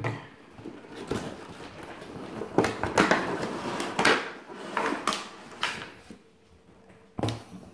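A product box being opened by hand and its clear plastic inner tray handled: a run of short scrapes, rustles and knocks of cardboard and plastic.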